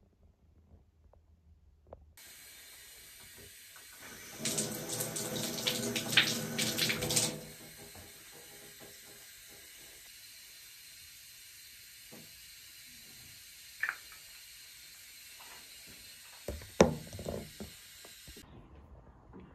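Water tap running in a bathroom for about three seconds, then shut off, followed by a few light clicks and knocks.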